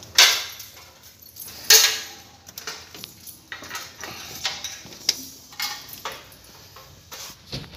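Handling noise around a ceiling access hatch: two loud sharp knocks, one right at the start and one under two seconds in, then a run of lighter clicks, rattles and knocks.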